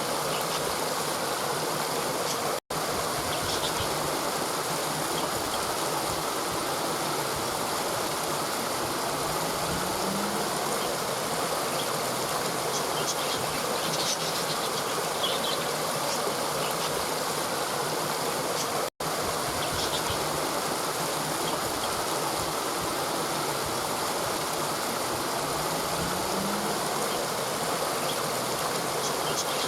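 Steady rushing of a river flowing over rocks, even and unbroken, cutting out completely for an instant twice.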